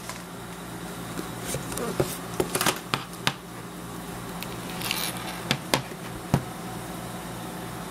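Handling of an iPad mini 4 and its cardboard box: a scatter of light clicks and taps, with a brief sliding hiss, as the tablet is lifted from its tray and set down on the desk. A steady low electrical buzz runs underneath.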